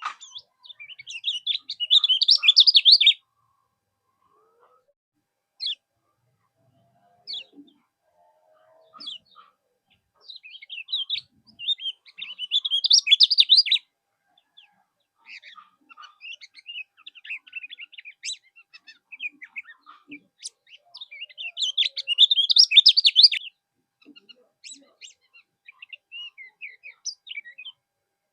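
Lemon-bellied white-eye (kecial kuning) singing: three fast, high twittering song phrases of two to three seconds each, with scattered single chirps between them.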